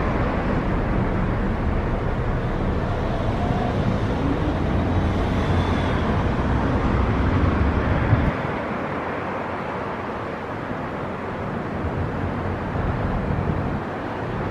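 Street traffic on a city road: cars going by with a steady noisy rumble, which drops away suddenly about eight seconds in.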